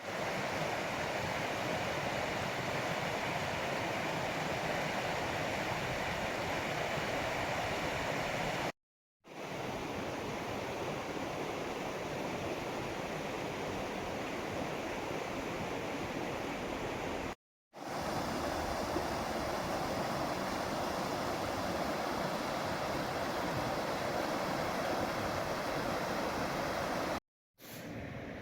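Steady rush of a clear river flowing over rocks, broken three times by brief silent gaps.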